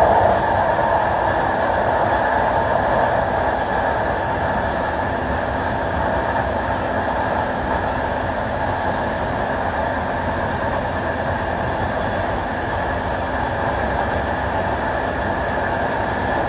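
Steady running noise of a passenger train in motion, wheels rolling on the rails, heard from the back of the last carriage.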